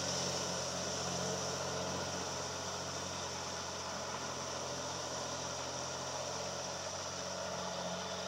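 Diesel engine of a single-axle Freightliner dump truck running steadily as the truck climbs away up the hill, its low hum growing slightly fainter.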